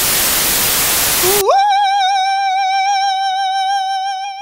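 Television static hiss that cuts off about a second and a half in, followed by a single high note that slides up and is held with vibrato for about three seconds, an intro jingle's sung note.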